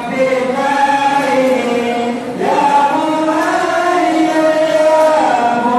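A group of men chanting in unison in long, drawn-out held notes: devotional Maulid chanting for the Prophet's birthday. The voices dip briefly about two seconds in, then slide to a new note, and glide again near the end.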